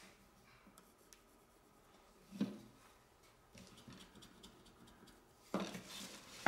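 Pencil scratching as it draws a line along a small wooden square on a plywood board. A sharp knock comes about two and a half seconds in, and near the end a louder rustle and knock as the wooden square is moved away across the bench.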